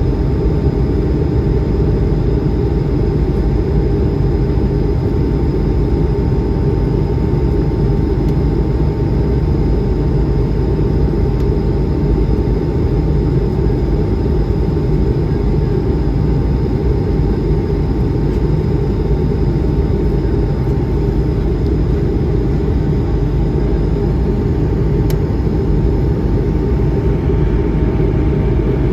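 Steady cabin noise of an Airbus A220-100, its Pratt & Whitney PW1500G geared turbofans running at constant power: a loud, even roar with a faint steady whine above it.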